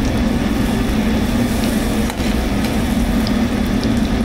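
Steady low mechanical drone of kitchen machinery running, with a few faint light ticks from a metal spoon stirring melting butter and garlic in a stainless steel pan.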